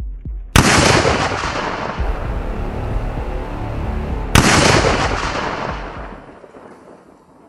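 Two loud gunshots about four seconds apart, each with a long echoing tail that fades away. Low heartbeat-like thumps are heard just before the first shot.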